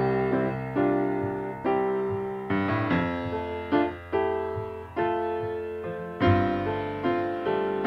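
Instrumental background music with no singing: chords struck about once a second, each fading before the next.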